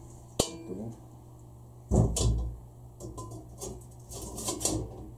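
Metal clanks and clinks from a steel mesh grate being set into a small steel grill bowl and its handle rod being fitted: a sharp ringing tap about half a second in, a louder knock about two seconds in, then several lighter knocks and rattles.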